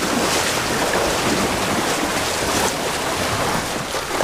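Shallow seawater sloshing and rushing around the wooden hulls and wading legs as a double-hulled sailing canoe is pushed off the beach, with wind on the microphone; a steady, even rush.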